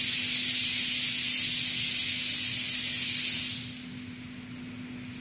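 Loud steady hiss of compressed air from the sorting robot's vacuum suction-cup gripper as it works on the cut sheet, cutting off about three and a half seconds in. A steady low machine hum runs underneath.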